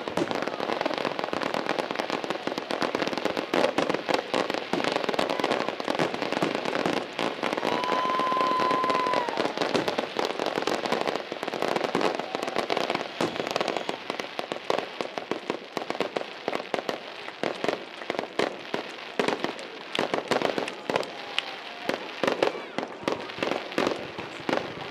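Aerial fireworks shells bursting one after another with dense crackling, keeping up a continuous barrage that thins a little in the second half. A brief steady whistle sounds about eight seconds in.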